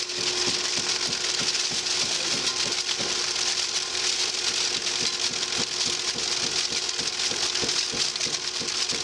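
Q-Sage debearder running: a steady hum and high hiss from the rotor, with irregular crackling ticks from dishwasher-pod material tumbling against its stationary and rotary teeth.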